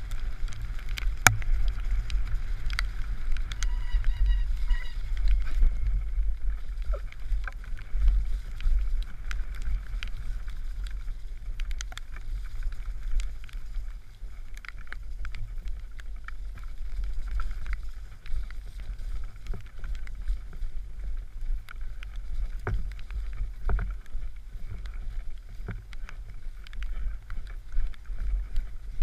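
Wind rumbling on a helmet-mounted camera's microphone during a fast mountain bike descent on a dirt trail, with the bike rattling and clicking over bumps throughout.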